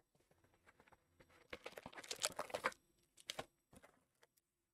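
Cardboard trading-card hobby box being opened by hand: the lid flap lifted, then a burst of rapid crinkling and rustling as the wrapped card packs inside are handled and pulled out, followed by a couple of sharp taps.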